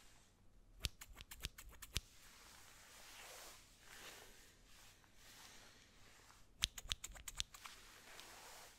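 Barber scissors snipping close to the microphone, in two quick runs of crisp metal snips: the first about a second in, the second about six and a half seconds in.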